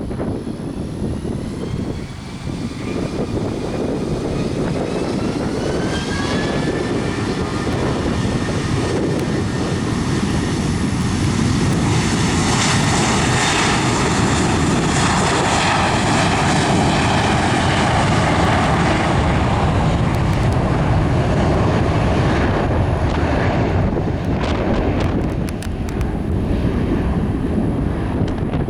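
Airbus A320-232's IAE V2500 jet engines spooling up with a rising whine, then running at takeoff thrust through the takeoff roll. The sound is loudest in the middle and eases somewhat near the end.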